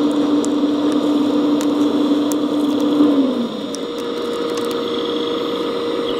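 Radio-controlled scale model CAT 374D excavator working, its drive giving a steady mechanical whine. About three and a half seconds in the pitch shifts to a different, higher steady tone and the sound gets a little quieter, as the machine changes what it is doing.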